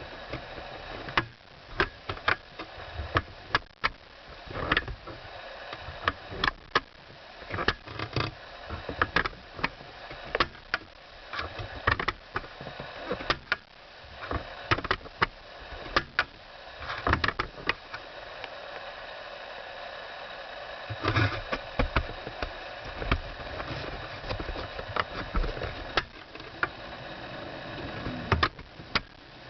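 Front seat backrest of a BMW E60 creaking: sharp, irregular creaks and clicks about once or twice a second over a steady background noise.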